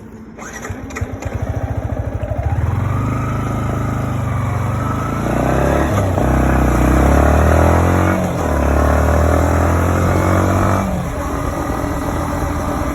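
Yamaha MT-15 motorcycle's single-cylinder engine and exhaust. The engine pulses unevenly for the first couple of seconds, then runs steadily and is revved up twice, held high each time. It drops back to a lower, steady run about eleven seconds in.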